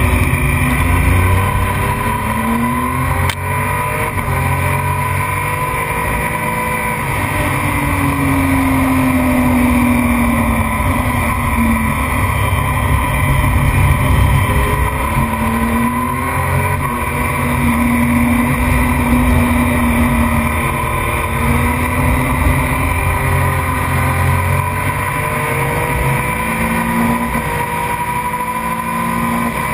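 Racing motorcycle engine running hard on track, its revs climbing and falling again and again with throttle and gear changes through the corners, over a steady rush of wind noise.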